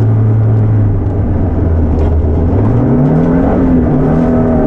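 Ford Ka RC5 rally car's engine heard from inside the cabin: it holds steady revs, drops back about a second in, then rises in pitch again from about two and a half seconds in as the car accelerates.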